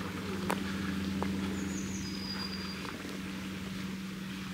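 A steady low hum under an outdoor scene. A couple of sharp ticks come in the first second, like twigs snapping underfoot. About two seconds in, a bird calls once: a short falling note, then a longer high whistle.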